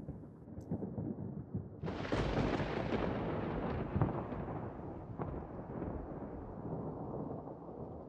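Thunderstorm sound effect: a low rumble, then a thunderclap about two seconds in that rolls on and slowly fades, over falling rain.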